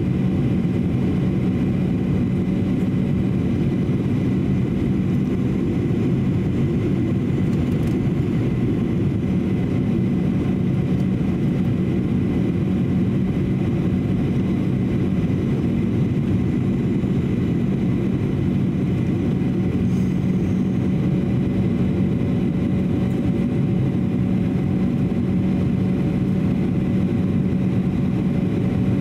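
Steady cabin noise inside a Boeing 737-800 in flight: the wing-mounted CFM56-7B turbofan's even drone and the rush of air past the fuselage, with a steady low hum and a faint high whine that don't change.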